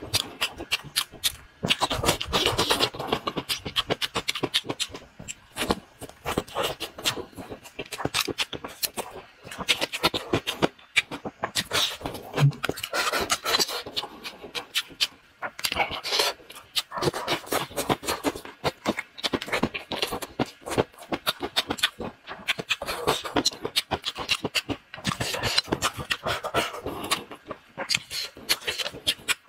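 Close-miked chewing: wet smacking and crackling of a mouthful of food, in quick clusters of clicks with short pauses between bites.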